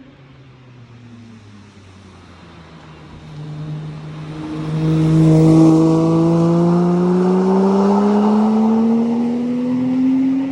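Porsche Cayman S 987.1's naturally aspirated 3.4-litre flat-six, heard through its stock exhaust with the sport exhaust valves fully open, accelerating hard as it comes by. The engine note climbs steadily and grows loud from about halfway, then drops off suddenly at the very end.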